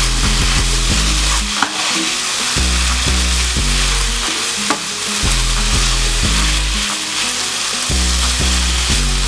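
Tomatoes and tomato paste sizzling steadily in a hot pan, with a couple of brief clicks.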